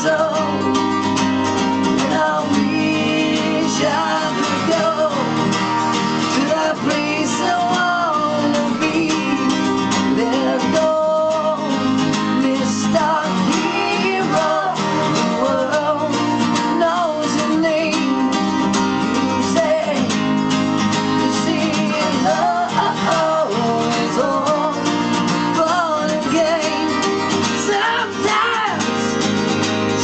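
Two acoustic guitars strummed together with a man singing over them, a live unplugged song.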